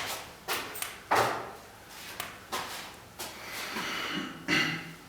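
Wood fire crackling in a Ferlux C17 fireplace firebox turned down to its minimum setting: an irregular string of sharp snaps and pops, the strongest about a second in and near the end.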